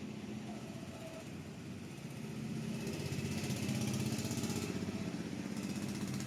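Bajaj Avenger's single-cylinder motorcycle engine running, getting louder as it is revved a little about two seconds in, then easing back slightly.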